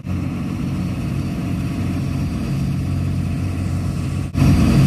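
Rigid inflatable boat's engine running steadily while under way, a low drone. It drops out briefly about four seconds in and comes back louder.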